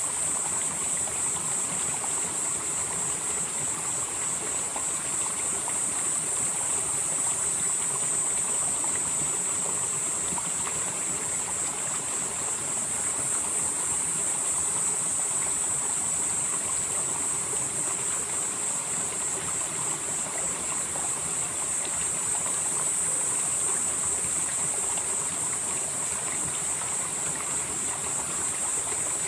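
Mountain valley stream flowing steadily over rocks, a constant rushing of water. A steady high hiss sits over it and slowly grows and fades.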